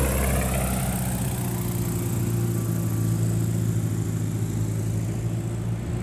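Piston engine of a Cessna 170 with a 180-horsepower conversion, droning steadily at low approach power as the plane flies away to land, slowly fading.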